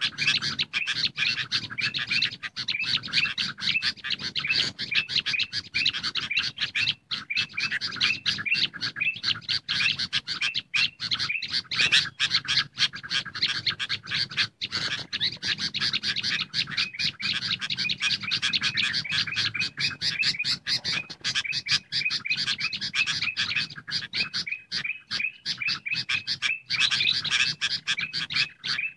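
Sooty-headed bulbuls and ruby-throated bulbuls calling together in a dense, unbroken run of short repeated chattering chirps: a bulbul lure call used to draw wild birds in.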